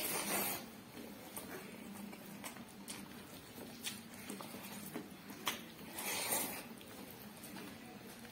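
Kitchen handling noises during food preparation: scattered light clicks and taps, with two short scraping rustles, one at the start and one about six seconds in, over a faint steady hum.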